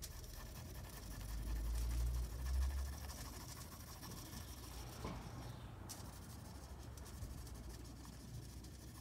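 Broad tip of a permanent marker rubbing over aluminium foil as lines are drawn, faint. A low rumble swells about a second in and fades by about three seconds in.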